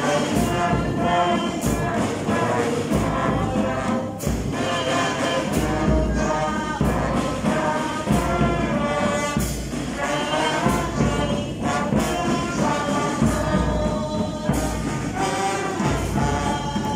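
School brass band playing an anthem: trumpets and trombones carry the melody over a steady beat from bass drum and snare drums.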